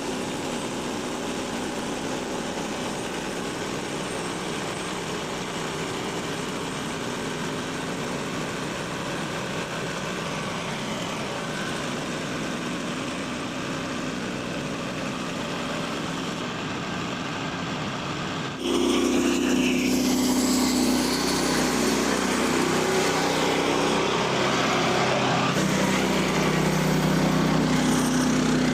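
A portable band sawmill's small gasoline engine runs steadily. About two-thirds of the way through it gets suddenly louder, with a stronger low hum that shifts in pitch a few seconds later.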